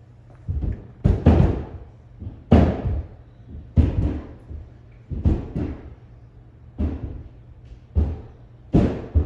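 Roofers working on the roof overhead: heavy, booming knocks come through the ceiling at an irregular pace, roughly one every second or so, some in quick pairs.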